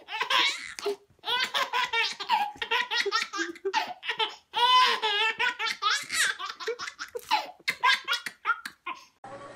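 A baby laughing hard in quick runs of squealing giggles, with a woman laughing along.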